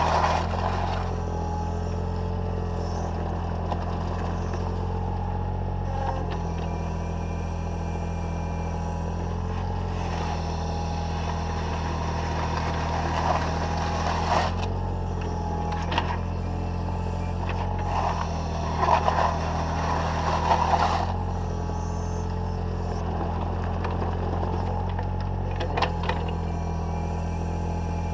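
Takeuchi TB014 mini excavator's diesel engine running steadily under hydraulic load, heard close up from on the machine. Several short scrapes come through as the steel bucket drags mud and gravel along the path, the loudest cluster a little past the middle.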